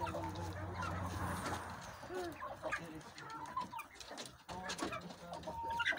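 A flock of hens clucking, with short scattered calls.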